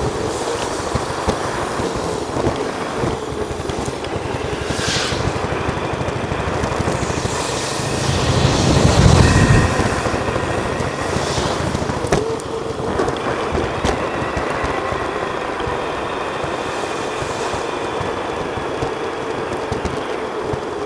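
Bicycle riding noise played back at four times speed: a steady rush of wind on the microphone and rolling noise from the bike, with a louder, deeper gust about eight to ten seconds in.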